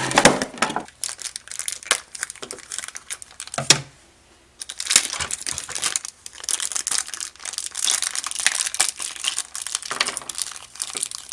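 Thin clear plastic packaging and small plastic bags crinkling as they are handled and pulled open, with a sharp click a little before the middle and a brief pause just after it.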